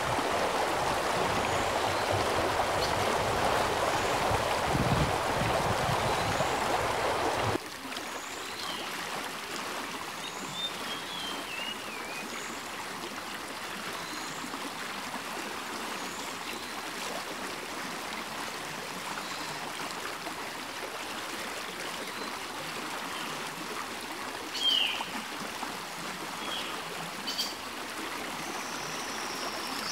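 Small stream running over rocks, a steady rush of water. It is louder for the first seven seconds or so, then drops suddenly to a softer rush.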